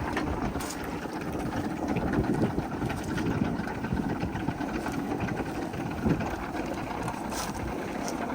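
Aérospatiale Gazelle helicopter running: a steady drone of engine and rotor.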